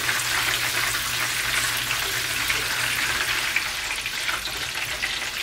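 Battered turkey legs deep-frying in hot canola oil: a steady sizzle and crackle of bubbling oil.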